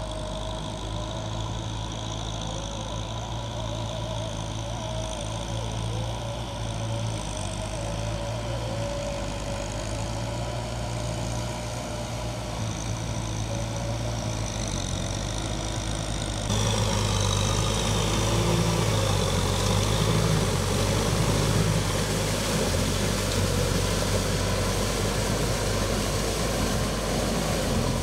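Kubota M6040S tractor's four-cylinder diesel engine running steadily while it drives a rotary tiller through flooded paddy mud. About halfway through, the sound suddenly becomes louder and closer, with more churning noise over the engine.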